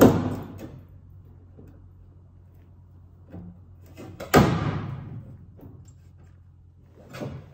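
Sharp bangs on the sheet metal of a 1995 Caprice wagon's rear quarter panel: a loud one at the start and another about four seconds in, each dying away over about half a second, with a smaller knock near the end.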